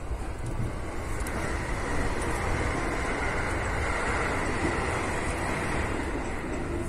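Electric commuter train running along the track, heard from inside the car: a steady rolling rumble with a faint higher hum that swells through the middle.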